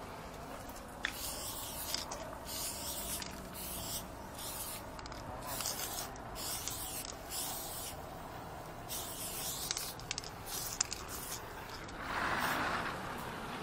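Aerosol spray-paint can hissing in a series of short bursts, about one a second, as a tag is sprayed onto a corrugated metal wall. A broader, louder rushing noise comes in near the end.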